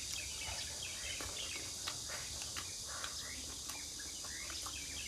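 Steady high-pitched drone of crickets and other insects, with scattered short bird chirps and a few faint clicks.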